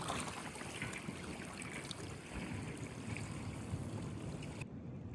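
Shoreline water sounds with wind: a steady rush of water. The high hiss cuts off suddenly near the end.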